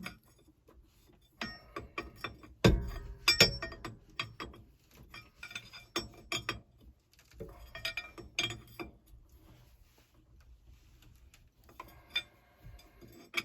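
Metal hand tools clinking and knocking against steel, a string of irregular sharp clicks and clanks with a quiet stretch in the latter part, as wrenches work on hydraulic line fittings.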